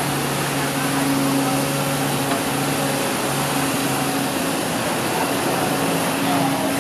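Six-wheel dump truck's engine running at a steady speed while its hydraulic hoist tips the bed, with soil and rock spilling out onto the ground.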